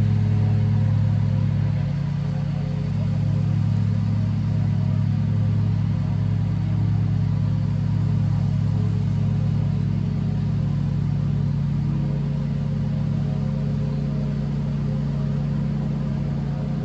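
Lawn mower engine running steadily, a constant low hum that eases slightly about two seconds in.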